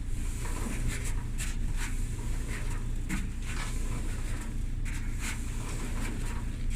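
Kenmore dryer drum turned over by hand, a low steady rumble with scattered light clicks and knocks and no squeak: the drum is running smooth.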